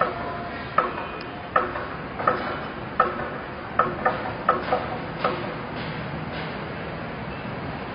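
A run of about ten sharp, short knocks, each ringing briefly, coming irregularly over the first five seconds, then only a steady background noise.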